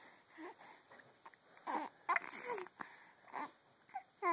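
Baby making a string of short whiny coos and squeals, some gliding up and some falling, with brief pauses between them.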